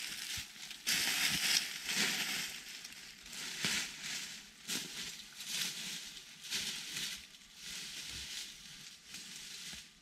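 Dry crunching and crackling, in short bursts roughly once a second.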